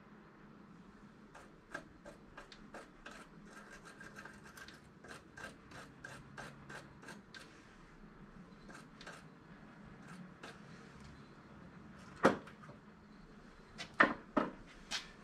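Hand work at a bench on a small welded metal part: a run of short scraping strokes, about three a second, then a few louder sharp knocks near the end.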